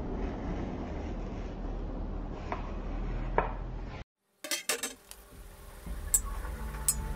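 A steady hiss with two light clicks, then a quick run of sharp metallic clinks from a flat steel knife blank handled on a wooden table. Background music with a steady low tone and sharp ticks comes in during the second half.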